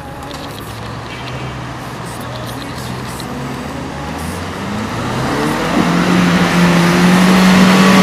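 Suzuki Jimny engine revving hard as the 4x4 pushes through deep muddy water, with splashing and spray growing louder. The engine note climbs about halfway through, then holds high and strong while the whole sound gets steadily louder.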